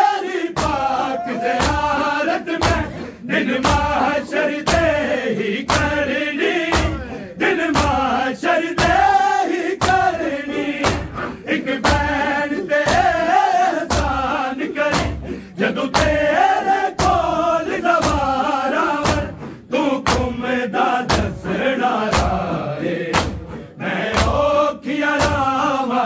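Male voices chanting a Punjabi noha (mourning lament) over steady, rhythmic thuds of chest-beating matam, about one and a half beats a second.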